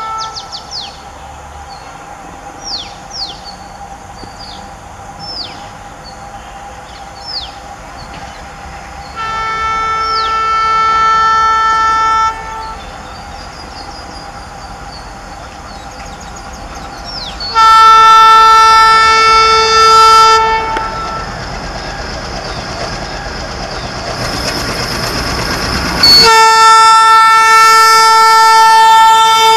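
WDG-3A ALCo diesel locomotive sounding its horn in three long, steady blasts as it approaches with a passenger train: one about nine seconds in, a louder one near the middle, and one held through the last few seconds. Between the last two blasts the locomotive's ALCo 251 V16 diesel engine and the train's running noise grow louder as it nears.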